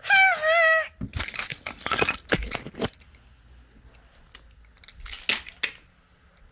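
Wooden toy trains colliding and tumbling: a clatter of hard wooden knocks and clicks for about two seconds, with one more knock a few seconds later. It opens with a high, wavering cry of about a second.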